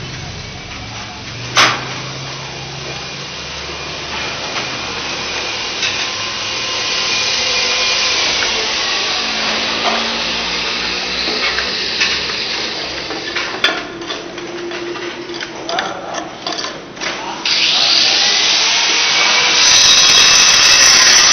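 A power tool running steadily, its pitch slowly rising and falling, with two sharp knocks; it grows louder near the end.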